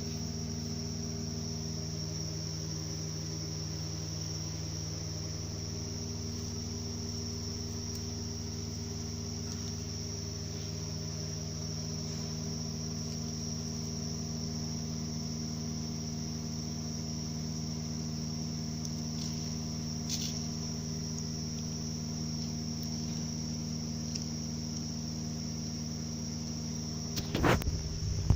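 Subaru Outback's five-speed manual gearbox running with a damaged rear bearing on the input (clutch) shaft: a steady hum with a constant high-pitched whine over it. A brief, louder burst comes near the end.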